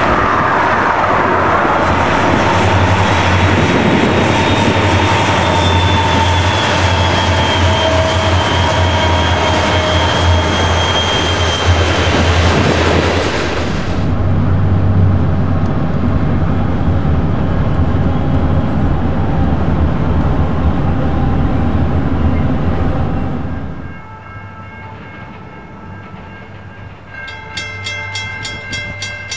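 Diesel-hauled freight train passing, its locomotives and rolling cars giving a steady loud rumble. About halfway through it changes to a train heard from a car pacing it. Near the end the rumble falls away and a grade crossing bell rings in a quick even rhythm.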